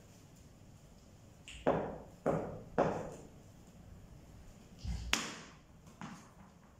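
A ball knocking on a hard tiled floor three times in quick succession, then a cricket bat striking the ball with a sharp crack, followed by a smaller knock; each hit echoes in the bare room.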